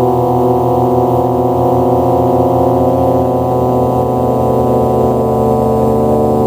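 FM MINT mk2 business-card-sized FM synthesizer playing a sustained drone of several held notes that pulse and beat against one another. A higher layer of tones comes in about halfway through.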